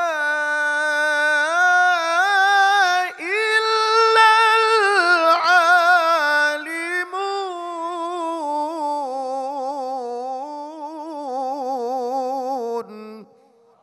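Male Qur'an reciter chanting in the melodic tilawah (mujawwad) style into a handheld microphone: one long, held, ornamented phrase that climbs to its highest pitch about four to six seconds in, then comes down with a quick wavering trill and breaks off near the end.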